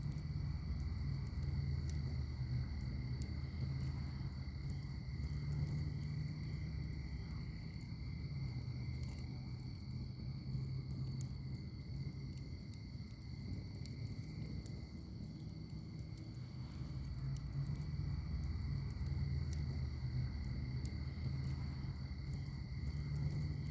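Wood fire burning in a fire pit: a low steady rumble of flames with scattered small crackles and pops. Behind it runs a steady high-pitched insect trill.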